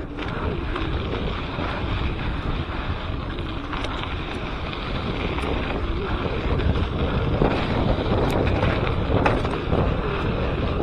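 Wind buffeting an action camera's microphone as a mountain bike rides a dirt trail, a steady rushing noise with a few faint knocks from the bike over bumps.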